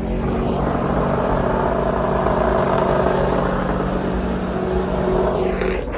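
A car engine held at steady high revs during a burnout, one unchanging pitch under a thick wash of noise.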